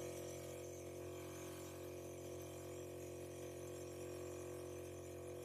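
A steady low hum with faint hiss, with no clear clicks or scraping.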